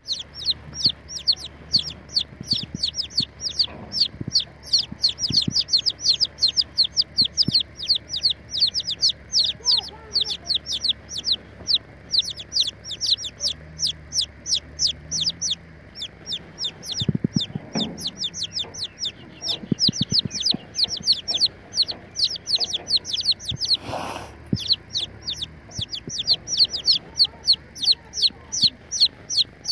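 Several young chicks peeping: rapid, high-pitched peeps that each slide downward, several a second, nearly continuous with a brief lull about halfway.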